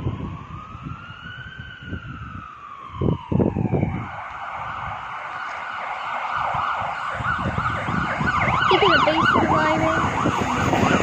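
An emergency vehicle's siren sounding on a nearby road: one slow rise and fall of pitch, then fast repeated up-and-down yelps near the end. Under it, a train's rumble builds steadily as the train approaches the station.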